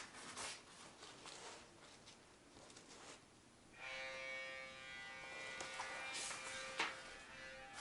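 Hockey goal horn playing: a steady, buzzy held tone that starts about four seconds in, after a few seconds of rustling and small clicks.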